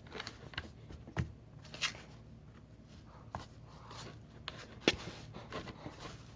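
Hands patting and pressing kinetic sand onto a large mound: scattered soft taps and knocks, the loudest about five seconds in.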